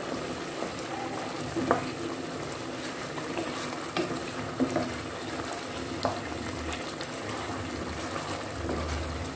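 Thick chicken curry sauce simmering and sizzling in a pot while a wooden spoon stirs through it, with a few short knocks of the spoon against the pot.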